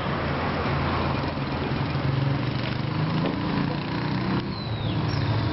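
A motor engine running steadily, a low hum that holds throughout, with a short high falling chirp about four and a half seconds in.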